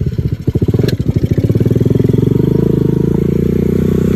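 Motorcycle engine pulling away, its firing pulses quickening over the first couple of seconds and settling into a steady drone at speed.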